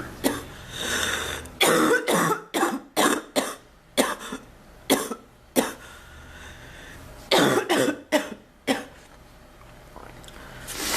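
A woman coughing in repeated fits: a single cough, a drawn-in breath, then a quick string of coughs about a second and a half in, scattered single coughs, and another cluster about seven seconds in.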